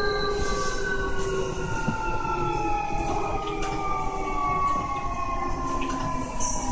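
Traction motors and renewed VVVF inverter of a Keio 1000 series train, heard from inside the car: several whining tones fall slowly in pitch as the train slows, over a low rumble from the wheels.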